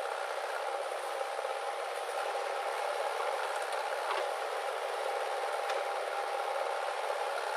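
JCB backhoe loader's diesel engine running steadily as its arm digs, an even machine noise with a few faint clicks about four and six seconds in.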